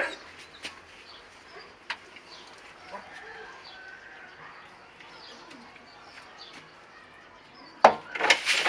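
Knuckles knocking on a wooden front door: several quick raps near the end, after a stretch of low background.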